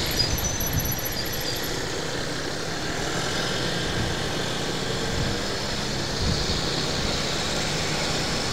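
Road traffic noise: steady engine and tyre noise from cars and motorcycles moving together, with a low rumble.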